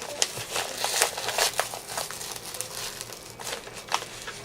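Packaging being handled and torn open by hand: irregular crinkling and crackling of paper or plastic wrapping, with sharp snaps.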